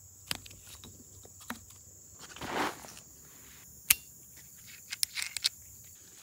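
Metal carabiner clicks and nylon strap and rope rustling as a locking carabiner is clipped onto a tree strap. A short rustle comes around two and a half seconds in, then one sharp metallic snap with a brief ring about four seconds in, and a few small clicks a second later.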